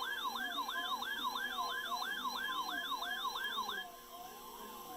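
Weather radio alarm tones during a required weekly test: a warbling tone sweeps up and down about three times a second over a steady tone. The warble cuts off about four seconds in, leaving the steady tone fainter.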